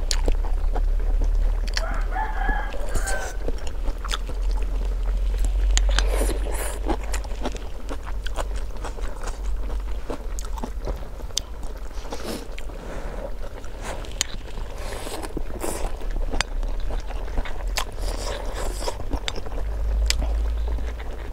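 A person eating hot-pot noodles with chopsticks: slurping, chewing and chopstick clicks against a bowl, with a steady low rumble underneath. A rooster crows once about two seconds in.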